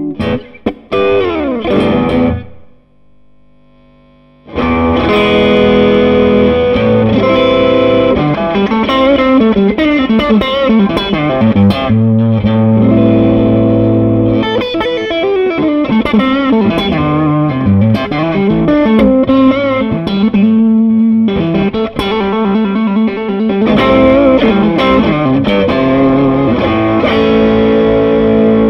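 Electric guitar played through an SCW Audio Blackstone Overdrive pedal, a Bluesbreaker-style clone, giving a light, clear overdrive that still crunches on hard picking. A few strummed chords stop briefly about two and a half seconds in, then a continuous run of bluesy lead lines with bent notes follows.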